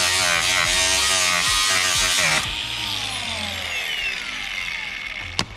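Milwaukee cordless angle grinder cutting metal, its whine wavering under load. About two and a half seconds in the cut stops and the disc winds down with a falling whine. A sharp click comes near the end.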